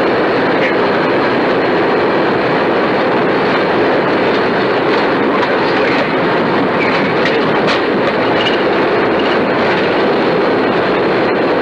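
Steady rushing cockpit noise of a McDonnell Douglas DC-10-30 as picked up by its cockpit voice recorder: engine and airflow noise, with a few faint clicks in the middle.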